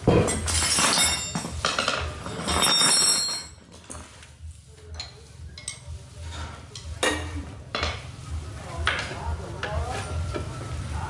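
Metal clinking and scraping as parts and tools are handled inside a stripped motorbike frame, a quick run of clinks for the first few seconds, then scattered single knocks.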